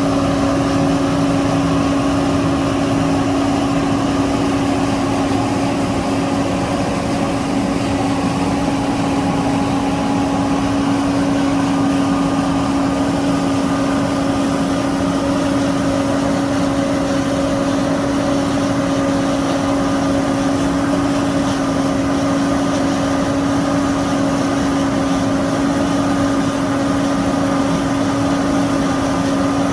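Diesel engine of heavy harvest machinery running at a steady, unchanging speed, with a strong droning hum.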